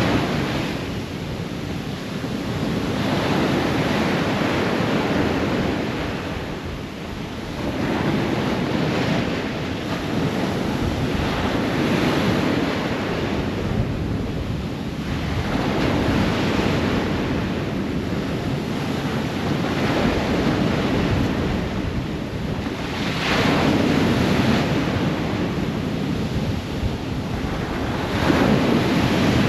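Ocean surf breaking on a shore: a continuous wash of waves that swells and ebbs every few seconds.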